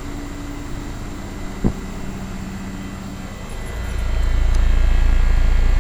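A 1987 Carrier Round One 3-ton central air-conditioner condensing unit runs with a steady hum from its compressor and fan, and gives a short click about a second and a half in. About three and a half seconds in, a deep low rumble swells up and stays loud.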